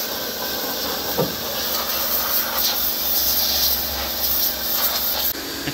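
Electric pressure washer blasting water into a pickup's front wheel well: a steady hissing spray on metal and mud, with the washer's pump motor humming underneath. The spray eases off about five seconds in.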